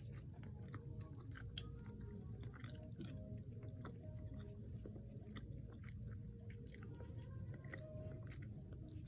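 Close-up chewing of a mouthful of burger by a denture wearer: irregular small clicks and smacks of the mouth and dentures throughout, over a steady low room hum.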